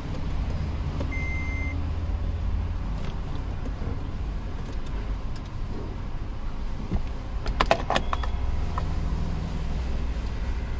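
Car engine running steadily with a low hum, a brief beep about a second in and a quick cluster of clicks near eight seconds.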